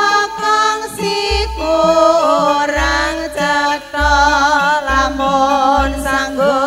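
Female sinden singing a Javanese campursari langgam into microphones, holding long notes with vibrato. A campursari band accompanies her, with deep bass notes repeating about once a second.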